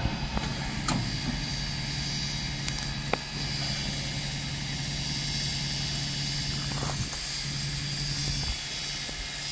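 Steady low mechanical drone with a hiss over it, stopping about eight and a half seconds in, with a few faint clicks.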